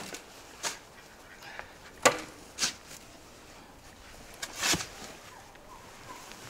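A spade scooping loose soil and tipping it into a metal wheelbarrow: a few short scrapes and rushing pours, the loudest a little past the middle.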